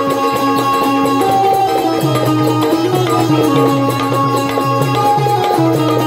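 Live Konkani folk-stage music: a hand drum and small cymbals keep a beat under a melody of long held notes that step from pitch to pitch.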